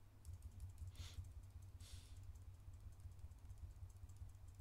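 Faint, quick clicks of computer keyboard keys being pressed over and over, with two soft breaths about one and two seconds in, over a low steady hum.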